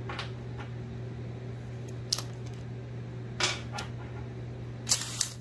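A handful of short, sharp metal clicks from a hole saw and drill being handled and fitted together, the loudest near the end, over a steady low hum from a running air conditioner.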